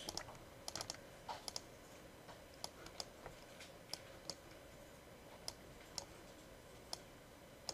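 Faint computer mouse clicks, a few in quick pairs at first and then single clicks spaced irregularly, about one every half second to a second.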